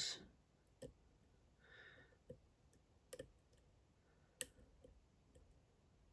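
Several faint, irregular clicks of a dimple lock pick tapping the spring-loaded pins inside a DOM IX Saturn two-row dimple lock, held under tension in a false set while the spool pins are checked.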